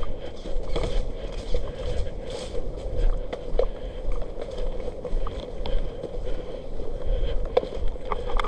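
Wind rumbling on the microphone, with a faint steady hum and scattered light clicks and knocks.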